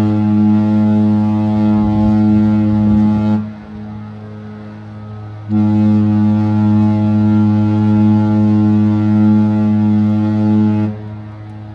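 The AIDAnova cruise ship's horn gives two long, deep, steady blasts as the ship departs port. The first ends about three seconds in; the second starts about two seconds later and stops shortly before the end, and the horn's sound lingers faintly after each blast.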